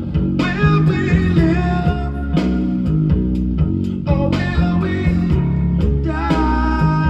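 Music with guitar and singing, played back from a freshly made cassette recording on a Nakamichi BX-100 two-head stereo cassette deck.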